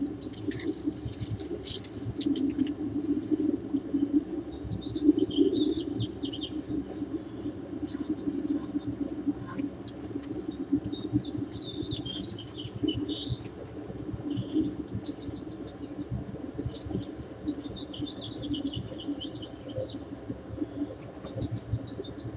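Birds chirping and singing in short repeated phrases, over a steady low hum.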